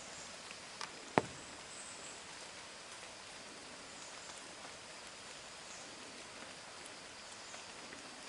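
Steady hiss of rain and a running mountain stream, with one sharp tap about a second in.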